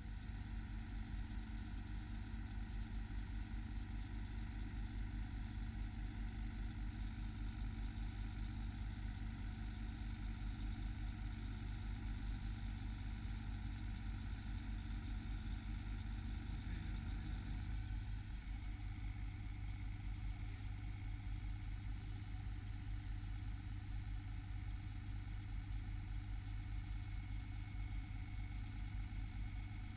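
Mercedes MBE-4000 diesel engine of a 2010 Western Star 4900SA truck idling steadily, with an even low pulsing rumble.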